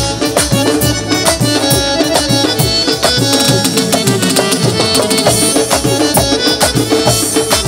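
Instrumental interlude of Bengali folk devotional music: tabla and dholak drums play a fast, steady rhythm over held harmonium chords, with no singing.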